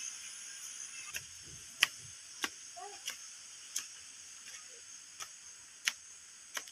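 Footsteps climbing concrete steps: short, sharp slaps of sandals, one roughly every half second to second, over a steady high hiss.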